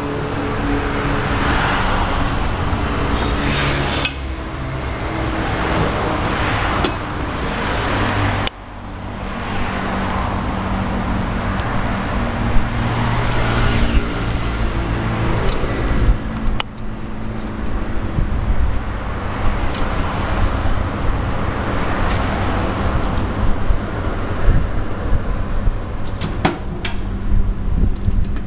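Steady, loud workshop background noise: a rushing din with a low hum. A few sharp metallic knocks come through as the steel frame is handled.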